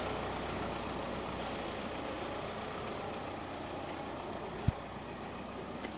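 Steady background vehicle noise, a low even rumble, with one sharp knock a little under five seconds in.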